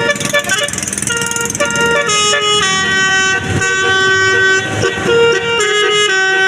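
Bus 'telolet' multi-tone horn playing a tune: a run of loud, held and short horn notes that step up and down in pitch.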